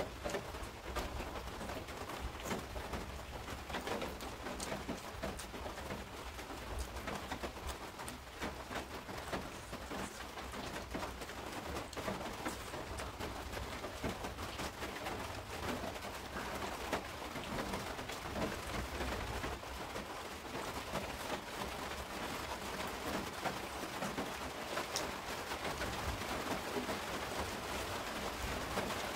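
Close-miked eating by hand: chewing, lip smacks and small wet clicks of rice, fish and fried egg, over a steady hiss of rain.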